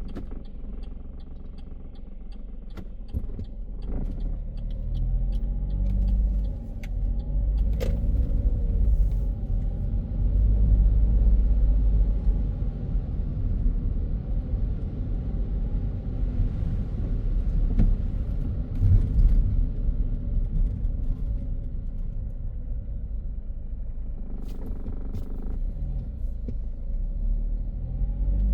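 Car driving on a city road: steady low rumble of engine and tyres that swells and eases with speed, with a few sharp knocks along the way.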